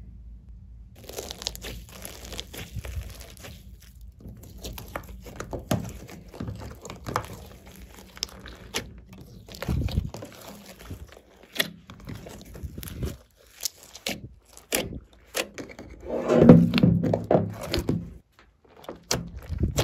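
Hands squishing and folding slime mixed with sequins and glitter: sticky squelches, crackles and pops in an irregular run that starts about a second in, loudest about three-quarters of the way through.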